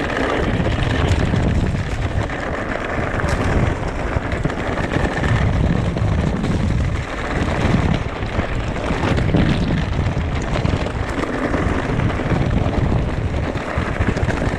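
Wind rumbling on the microphone in uneven gusts over the rolling noise of an e-mountain bike's tyres on a rough trail, with a few faint knocks from the bike.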